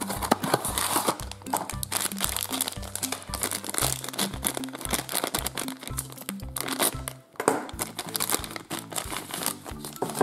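Background music with a steady beat, over the crinkling and rustling of a Sweet Box's packaging being opened by hand, with a noisier stretch of crinkling about a second in.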